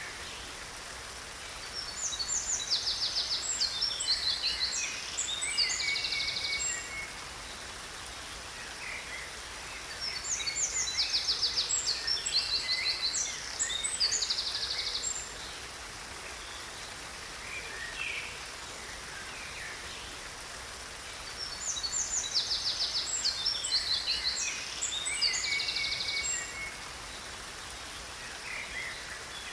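A songbird singing three long phrases of fast trills and chirps, each about five seconds, over the steady rush of a waterfall.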